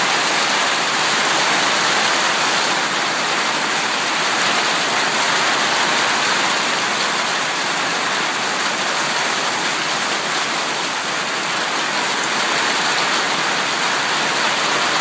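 Hail and rain falling heavily, a steady dense hiss with no let-up.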